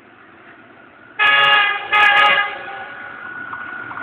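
Passenger train's locomotive horn sounding two short blasts, the second slightly longer, as the express nears the station. After the blasts a steady tone and the rising noise of the approaching train remain, getting louder toward the end.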